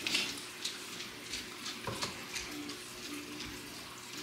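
Faint water trickling and splashing, with scattered small clicks and taps of handling.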